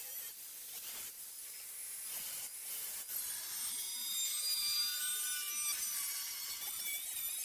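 Angle grinder cutting through the steel rear body panel of a Jeep YJ: a steady high grinding hiss with a faint thin whine.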